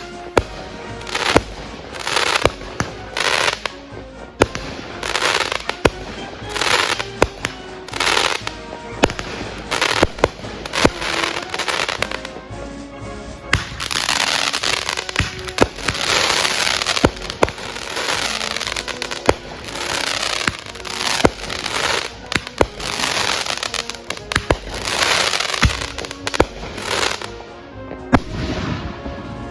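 Consumer fireworks going off in quick succession: a rapid string of sharp bangs, often one or two a second, with long stretches of crackling from crackle-effect shells in the second half.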